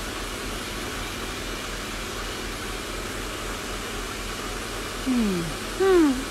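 Steady fan-like background hiss with a low electrical hum. Near the end a person gives two short murmurs: the first falls in pitch, the second rises and then falls.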